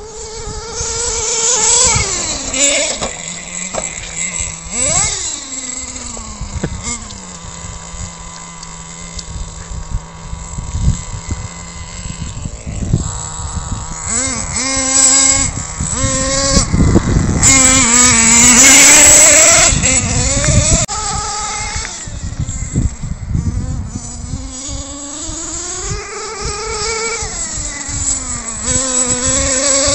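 HPI Bullet MT 3.0 nitro RC monster truck's small two-stroke glow engine (Nitro Star F3.0) revving up and down as it is driven, its whine rising and falling again and again. It settles to a steady idle hum for several seconds in the first half and is loudest at full throttle a little past the middle.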